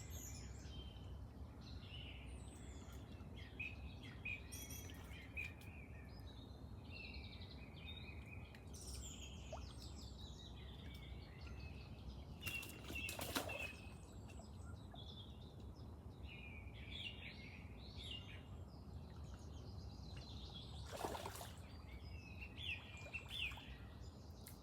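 Faint birdsong: small birds chirping and singing on and off over a steady low outdoor background, with two brief louder noises about halfway and near the end.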